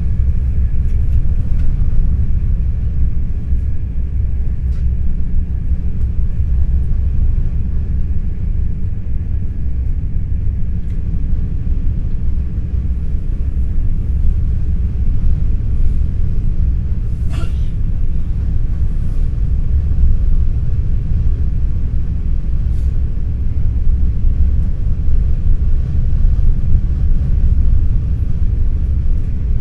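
Steady low rumble of an NS ICNG intercity train (Alstom Coradia Stream) in motion, heard from inside the passenger car. A single brief click comes a little past halfway.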